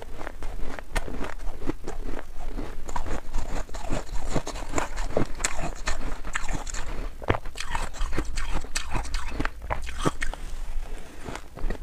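Close-miked chewing of a mouthful of crunchy, powdery white frost ice: a dense run of crisp crunches and crackles.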